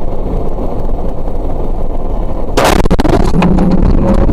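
Vehicle crash heard from inside the cab: steady low road and engine rumble while driving over a snowy road, then a sudden loud impact about two and a half seconds in, followed by rattling and a held pitched tone.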